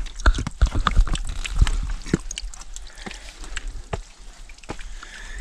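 A hiker's footsteps and scuffs while scrambling over granite boulders: irregular knocks and thumps, loudest in the first two seconds.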